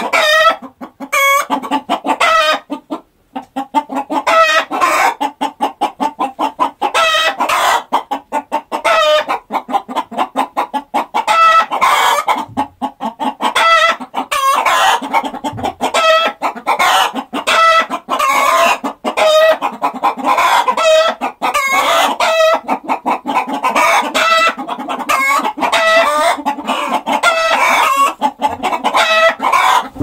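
A flock of domestic chickens clucking in a dense run of short, overlapping calls, with rooster crowing mixed in. There is a brief pause about three seconds in.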